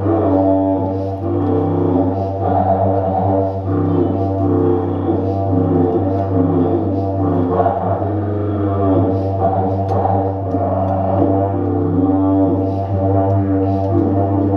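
Driftwood didgeridoo playing a continuous low drone, its overtones swelling and shifting, with higher notes changing pitch above it.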